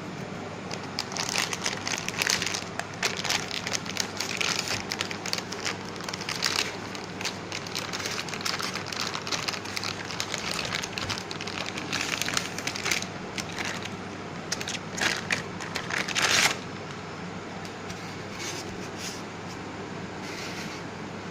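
Irregular crinkling and rustling handling noise from about a second in until about 16 seconds, over a steady low hum that carries on alone afterwards.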